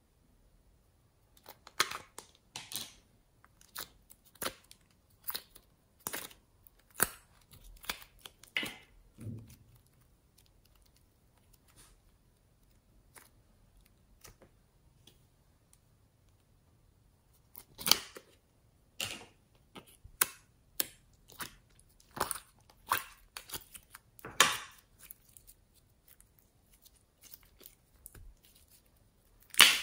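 Sticky slime being handled by hand: quick wet clicks and pops in two bunches, with a quiet stretch of several seconds between them.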